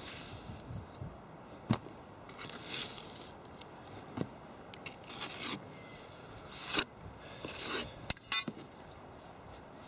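Irregular scrapes, clicks and clinks of hard objects being handled, with a quick rattle of clicks near the end.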